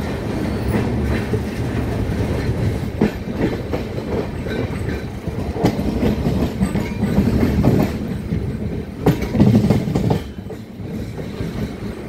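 Indian Railways express passenger train running, heard from the open door of a coach: a steady wheel-and-track rumble with wheels clacking over rail joints and points. There is a louder burst of clatter about nine seconds in, after which the rumble eases.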